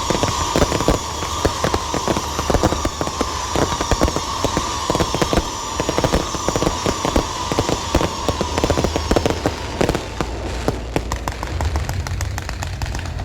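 Lantern-pole fireworks going off: dense, rapid crackling throughout, with a shrill whistling that slowly falls in pitch and dies away about ten seconds in.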